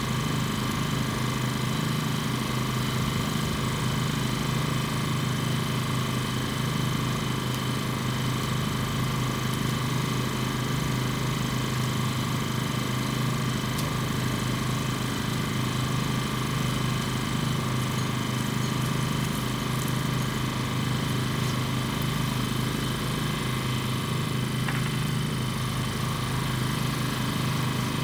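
An engine idling steadily: a low, even hum with a few thin steady tones above it.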